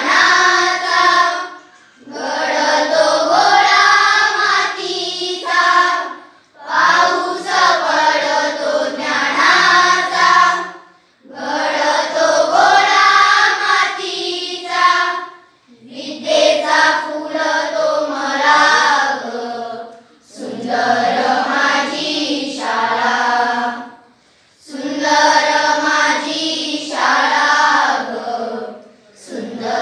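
A group of schoolchildren singing a Marathi school prayer song in unison, in sung lines of about four seconds, each followed by a brief pause for breath.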